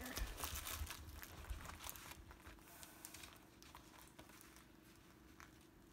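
Faint crinkling and rustling of a plastic-covered diamond painting canvas being unrolled and smoothed flat by hand. The rustling is busiest in the first couple of seconds, then dies down to a few soft touches.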